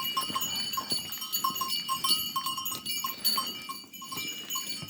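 Neck bells on livestock clinking irregularly as the herd moves off to graze, several bells ringing at once.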